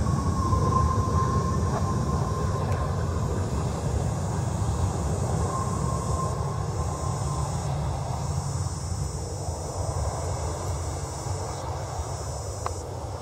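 Twin turbofan engines of a Boeing 737 running at high power as the jet rolls along the runway: a heavy rumble with a thin high whine, slowly fading as the aircraft moves away.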